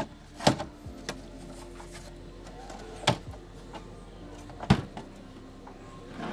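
A handful of separate sharp knocks and clicks, about five in all with the loudest nearly five seconds in: TV parts being handled and set down during a flat-screen TV repair.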